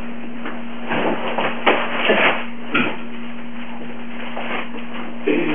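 Cardboard boxes being handled and torn flat, a few short rustling tears in the first three seconds over a steady low hum.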